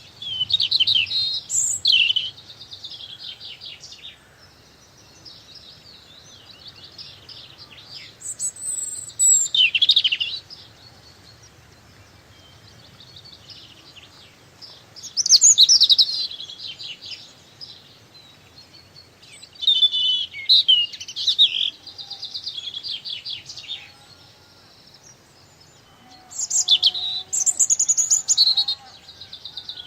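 A small songbird singing: a bright, fast, trilling phrase of two to four seconds, repeated about five times with pauses of a few seconds between.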